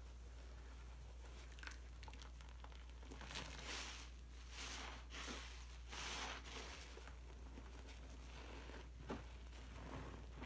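Soapy sponges squeezed and kneaded by hand in a bowl of thick detergent foam, with wet, squishing foam sounds. A cluster of louder squeezes comes from about three to six seconds in, and there is a sharp click near the end.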